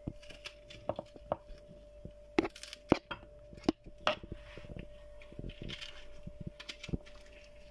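Onion pieces being dropped and set into a plastic food processor bowl: irregular light clicks and knocks, the loudest about two and a half to four seconds in, over a faint steady hum.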